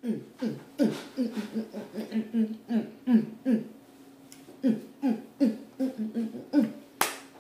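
A person's wordless voice: a long run of short falling vocal sounds, two or three a second, over a held low hum. A sharp knock comes near the end.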